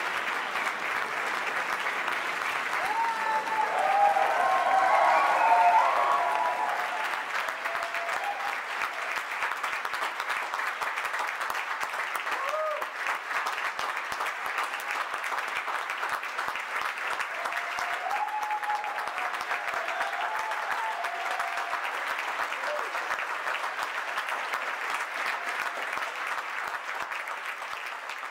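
Audience applauding steadily in a recital hall, swelling a few seconds in, with a few voices calling out during the swell and again later.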